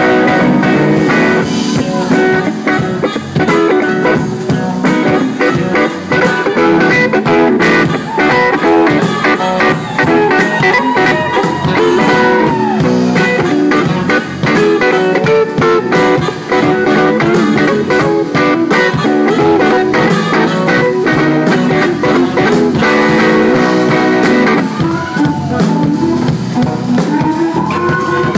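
Live blues-rock band playing loudly with no singing, an electric guitar out front over bass guitar. Held, bending notes come near the middle and again near the end.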